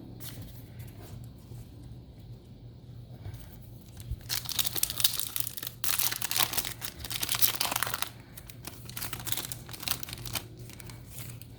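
A foil Yu-Gi-Oh! booster pack wrapper being torn open and crinkled: a dense crackling from about four to eight seconds in, then scattered crinkles.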